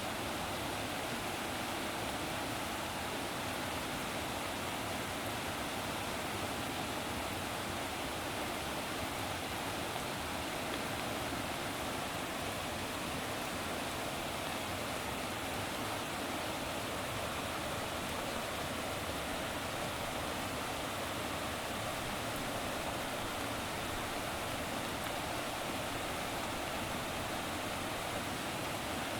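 Steady rushing of running water, even and unchanging throughout.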